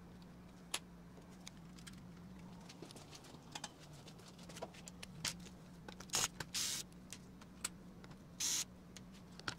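Small clicks and short scrapes of M.2 SSDs being unseated from a laptop's open underside and set down on a wooden desk, a handful of times, with a faint steady hum underneath.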